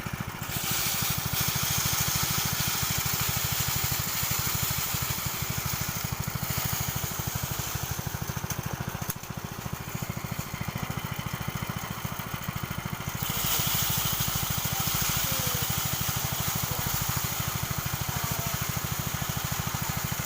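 Engine-driven paddy thresher running steadily, its small engine pulsing fast, with a rushing hiss of grain and straw as rice is fed through. The hiss swells about half a second in, eases around six seconds, and swells again about thirteen seconds in.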